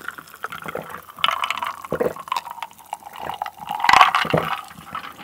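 Cola being drunk from a glass jar, close to the microphone: wet sips and gulps, the loudest near the end.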